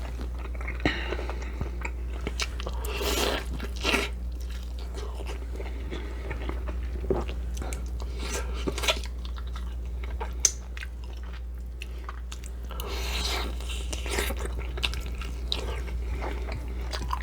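Close-miked chewing of food, with irregular crisp crunching bites, over a steady low hum.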